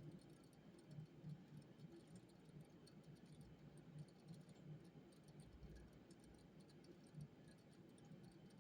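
Near silence with faint, irregular small clicks and taps from someone studying at a desk.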